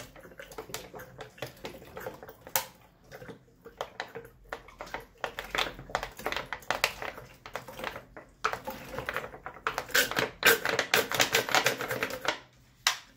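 Liquid detergent glugging out of an upturned plastic bottle, its nozzle removed, into a plastic funnel: a rapid run of clicking pops as air bubbles back into the bottle. The pops come thickest in the last few seconds and stop just before the end.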